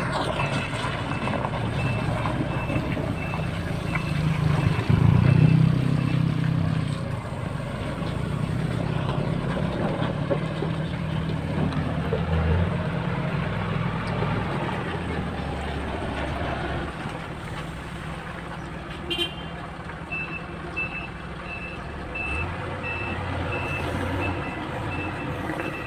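Motor grader's diesel engine running steadily, louder about five seconds in. Its reversing alarm beeps about twice a second in the first five seconds and again from about twenty seconds in, while the machine backs up. A brief sharp sound comes about nineteen seconds in.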